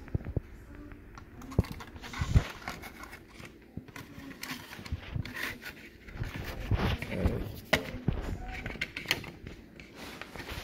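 Irregular clicks, taps and scrapes of a plastic Nest thermostat base plate being handled against a wall as the thermostat wires are pushed through it.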